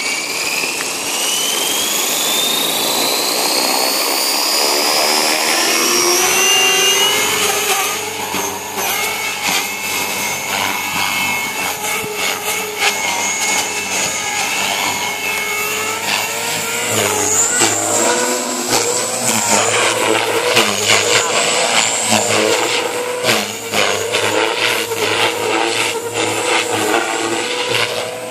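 JR Forza 450 RC helicopter spooling up: its motor and rotor whine rises steadily in pitch over the first several seconds. It then holds a high whine that wavers in pitch and loudness as the helicopter lifts off and flies.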